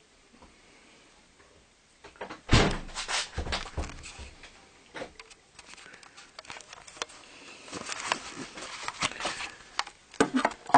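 Clatter of things being handled in a kitchen: a loud knock about two and a half seconds in, then a run of irregular knocks and clicks.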